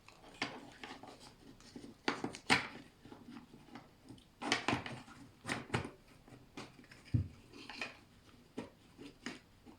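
Irregular clicks and knocks of plastic kit parts being handled and pressed together while a small motor is pushed into its housing, with a duller thump about seven seconds in.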